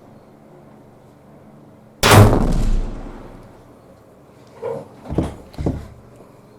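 A single rifle shot about two seconds in, dying away over about a second, followed a few seconds later by three quieter sharp clacks.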